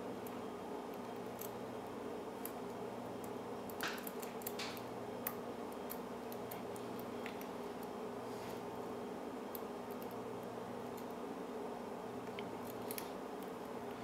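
Lock pick and tension wrench working the pins of an old Yale pin-tumbler padlock: faint, scattered small clicks and scrapes as the pins are probed for binding, with a few sharper ticks about four to five seconds in.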